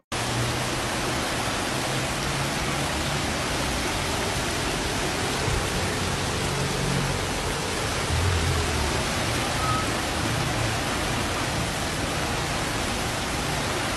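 Steady, even rushing of a muddy flash-flood torrent, a constant wash of water noise with no let-up.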